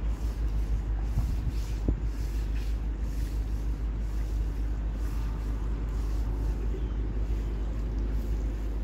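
A long-handled brush scrubbing and a hose spraying water against the aluminium walls of a boat's wheelhouse, in repeated strokes, over a steady low rumble.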